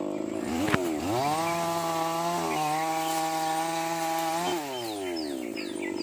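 Two-stroke chainsaw revving: the throttle opens about a second in, the engine holds at high speed for about three seconds with a slight dip midway, then falls back toward idle. Birds chirp near the end.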